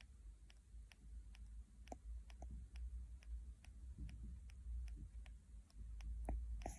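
Sleeping puppy grinding and clicking its teeth while dreaming: a run of small, even clicks about two a second, with a few louder clicks among them.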